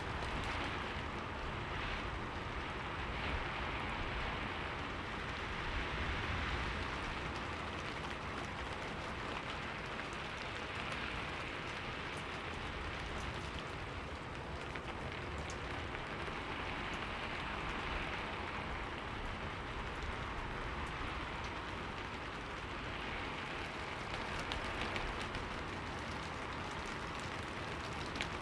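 Steady rain falling on a window, an even hiss of drops that swells and eases gently every few seconds, with scattered light drop ticks.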